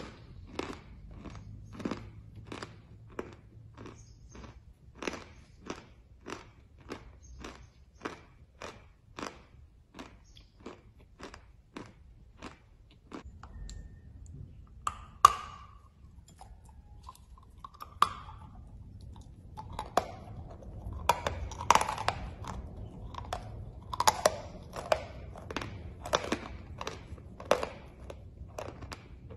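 A person chewing pieces of chalk tile: a steady crunch about twice a second, then one loud bite into the tile about fifteen seconds in, followed by denser, louder crunching.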